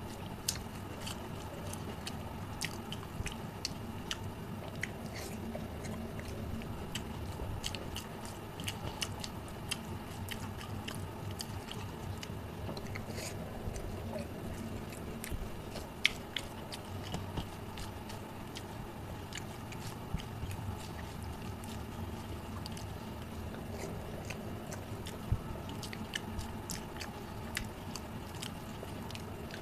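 Close-miked chewing and mouth sounds of a person eating rice and curry by hand, with frequent small sharp clicks throughout.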